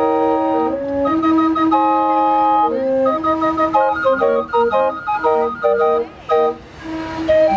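A calliope's brass pipes playing a tune: held chords with a melody on top, breaking into quicker, shorter notes about halfway through.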